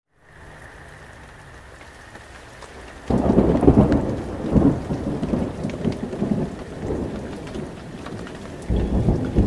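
Thunderstorm: steady rain, then a sudden loud thunderclap about three seconds in that rolls on for several seconds and swells again near the end.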